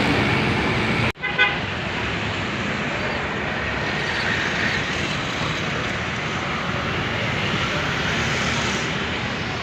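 Steady road traffic noise. About a second in the sound cuts out for an instant and a short horn toot follows.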